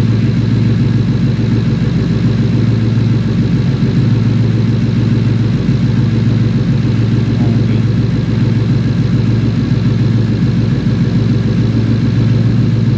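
2015 Ford Mustang's V8 idling steadily while misfiring on cylinder 8, whose fuel injector is getting no pulse.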